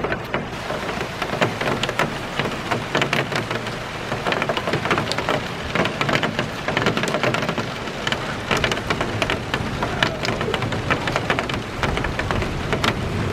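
Steady heavy spring rain shower, with many drops pattering distinctly on a hard surface close by.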